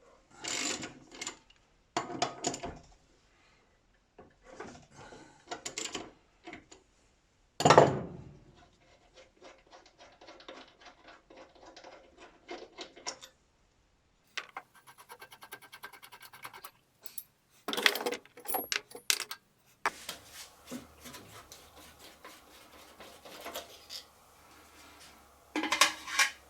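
Hand work on an upturned petrol lawn mower while its blade is being taken off: tools and metal parts knocking, scraping and rubbing, with one sharp knock about eight seconds in and a run of rapid clicks around the middle.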